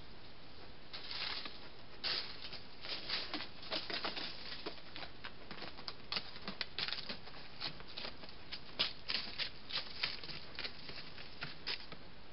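Chamois walking on dry leaf litter and loose stones: irregular crunching and rustling steps that begin about a second in and stop shortly before the end, over a steady hiss.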